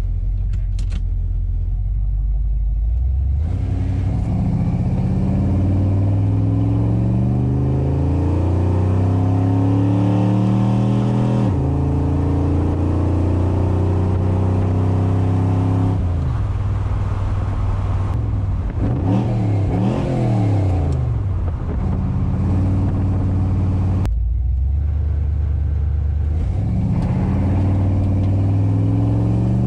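A 1969 Chevrolet Impala engine through a 3-inch dual exhaust with Summit Racing mufflers, heard inside the cabin under full-throttle acceleration. The note holds low for the first few seconds, then climbs steadily, drops sharply at an upshift about twelve seconds in and climbs again. It eases off past the middle and starts climbing again near the end.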